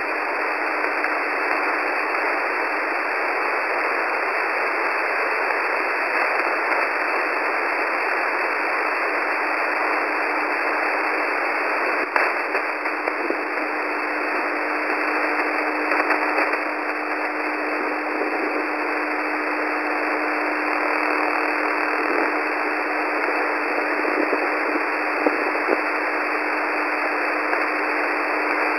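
Shortwave radio static from an SDR receiver tuned to 9262 kHz: a steady, band-limited hiss with a steady low tone running through it and a few faint crackles.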